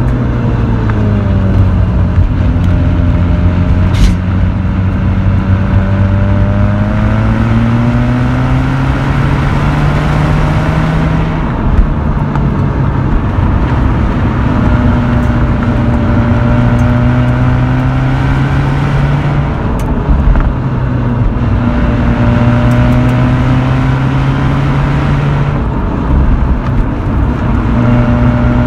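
Mazda RX-8's naturally aspirated two-rotor rotary engine and exhaust running at around 4,000 rpm, its note rising and falling with the throttle and breaking off briefly a few times before picking up again. Steady tyre and road noise runs underneath.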